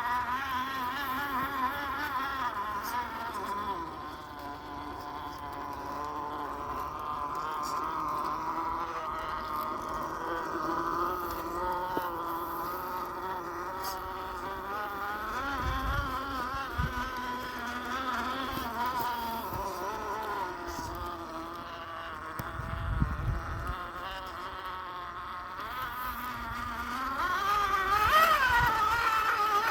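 Axial SCX10 II RC crawler's electric motor and gearbox whining, the pitch wavering up and down with the throttle as it crawls. A few dull low thumps come around the middle, and the whine grows louder and higher near the end.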